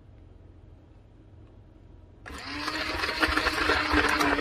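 Stick blender switches on about two seconds in and runs in a pot of thick hot-process soap paste: a steady motor hum over rough, churning noise.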